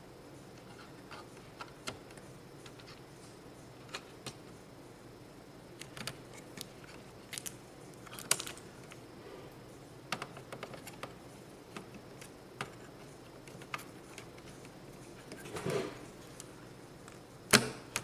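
Scattered sharp plastic clicks and taps of DDR3 ECC memory modules and DIMM slot latches as the modules are seated in an HP ProLiant DL360 G7 server's memory slots. A short scraping rustle comes about three-quarters through, and the loudest click near the end.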